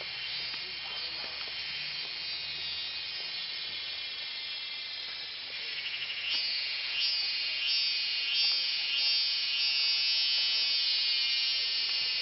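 Cicadas droning in the forest canopy: a steady high-pitched buzz that grows louder about halfway through and then pulses about twice a second.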